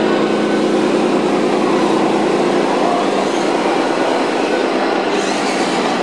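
Radio-controlled Scania R 560 8x4 model dump truck driving loaded, a steady mechanical drone. A brighter hiss joins about five seconds in.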